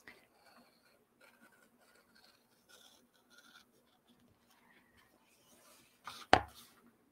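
X-Acto craft knife cutting through a paper journal page, short faint scratching strokes. About six seconds in, a single sharp knock with a rustle of paper.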